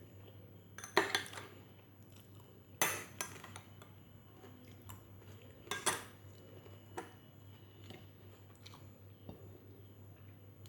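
Cutlery clinking and scraping against a plate of biryani while eating: three sharp clatters, about a second in, near three seconds and near six seconds, then a few light ticks.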